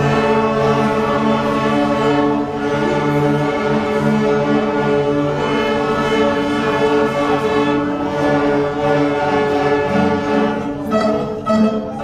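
Children's string orchestra of violins and cellos bowing long held notes together, the pitch changing every few seconds. The notes grow shorter and choppier near the end.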